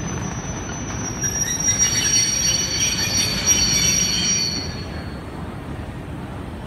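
Empty freight wagons' steel wheels squealing under braking as the train slows to a stop, over a low rumble. The high squeal comes in about a second in, is loudest through the middle and fades out after about five seconds.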